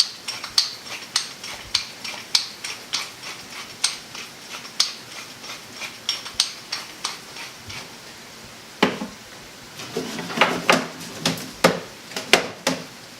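Pepper mill being twisted over cauliflower, clicking about twice a second. Near the end come a few louder knocks and clatters of kitchenware.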